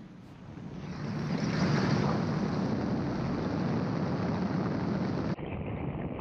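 Gyroplane in flight, heard from the cockpit: a steady drone of engine and rushing air that grows louder about a second in. About five seconds in it dips suddenly and turns duller, losing its hiss.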